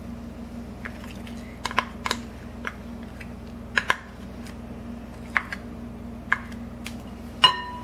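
A small spoon scraping and tapping honey out of a ceramic cup, making scattered light clicks, some in quick pairs, and one louder ringing clink near the end.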